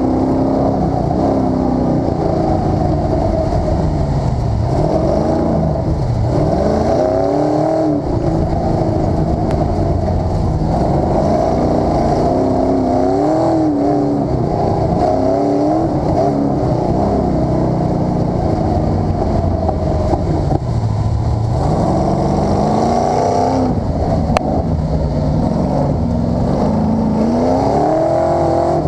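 Engine of a 650-horsepower BFD sand rail, heard from inside the cockpit, revving up and falling back several times as it is driven over the sand.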